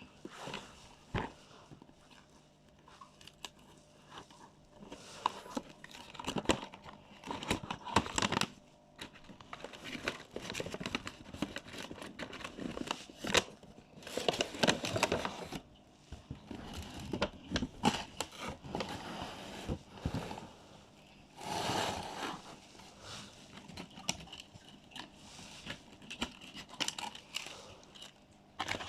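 Packaging being torn open and handled by hand: irregular rips, crinkling rustles and small clicks, in several louder bouts.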